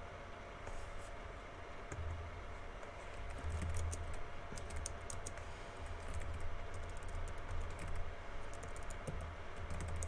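Typing on a computer keyboard: quick key clicks in irregular bursts with short pauses between them.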